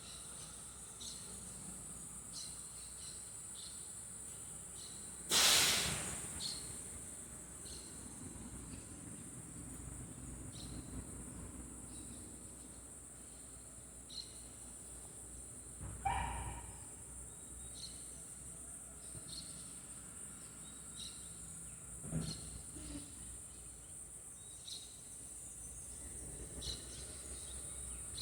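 Outdoor insect chorus: a steady high-pitched buzz of crickets or cicadas, with short high chirps repeating about once a second. About five seconds in there is one loud, brief rush of noise, and a couple of smaller knocks come later.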